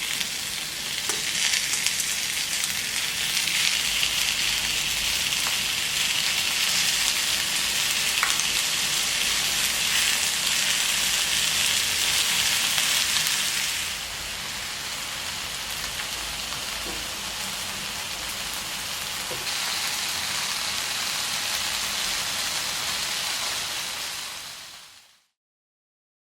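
Stir-fried webfoot octopus (jjukkumi-bokkeum) sizzling in a hot pan, a steady frying hiss that drops in level about halfway through and fades out near the end.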